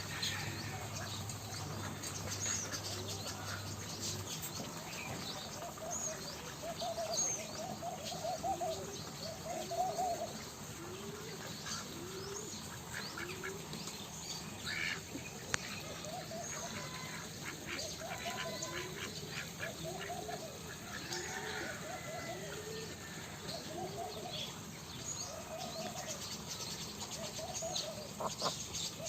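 Domestic ducks calling over and over, short rising-and-falling calls at about one a second, with small birds chirping high above them.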